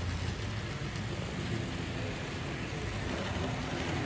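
HO scale model train, led by a GE C44-9W locomotive model, running along the track with a steady low running noise.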